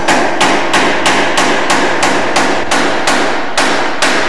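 A hammer striking repeatedly at a steady pace, about three blows a second, each blow echoing in the large engine shed.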